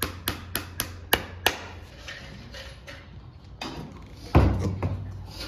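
Farrier's hammer tapping in a quick, even rhythm of about four blows a second, ending with two harder blows about a second and a half in. A heavy, low thump follows a little past four seconds in.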